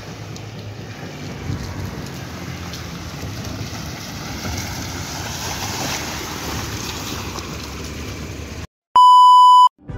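Red Hyundai hatchback driving slowly through muddy rain puddles on a dirt road: a low engine rumble under a steady rushing, splashing noise of tyres through water. Near the end the sound cuts out briefly, then a loud steady electronic beep lasts under a second.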